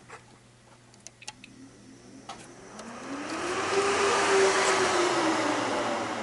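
HP ProLiant DL360 G7 server's cooling fans spinning up at power-on: a few light clicks, then a rushing whine that rises in pitch and loudness to a peak a little past halfway and winds back down.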